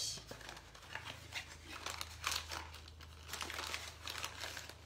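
Metal tablespoon scooping cornstarch out of a cardboard box: soft, irregular crinkling and crunching of the powder and its packaging, over a steady low hum.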